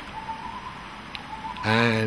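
A pause filled only by a faint, steady high-pitched whine, then a man's voice begins speaking near the end.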